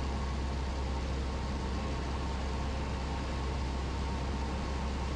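Cessna 172's piston engine and propeller droning steadily in cruise, heard inside the cabin over a constant hiss of airflow.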